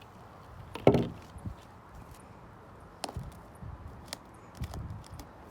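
Handling noises from kneading sticky homemade slime and its bowl: one loud thump about a second in, then scattered light clicks and taps.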